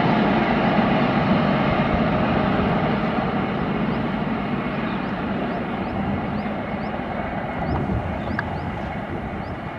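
LHB express train's coaches running away along the track, a wheel-on-rail rumble that fades steadily as the last coach recedes.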